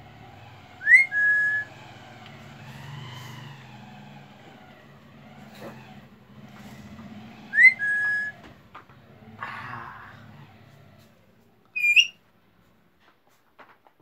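Ringneck parrot whistling. It gives the same short two-part whistle twice, about six and a half seconds apart, each a quick upward slide into a held note, then one higher rising whistle near the end. A low steady hum runs underneath and stops shortly before that last whistle.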